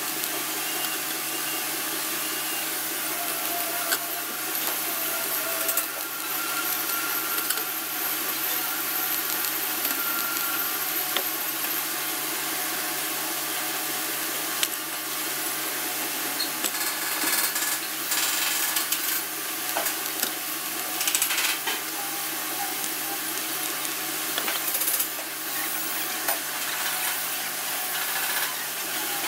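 TIG welding on a steel-tube frame: a steady hiss and electrical hum with scattered crackling, heard over the steady noise of a busy fabrication shop.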